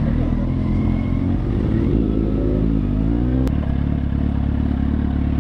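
Motorcycle engine running, revving up over about a second near the middle, then a click and a steady run.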